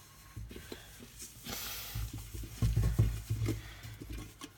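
A kitchen sponge rubbing polishing paste over a chrome kettle's surface in short, irregular strokes, with a few soft bumps as the kettle is handled.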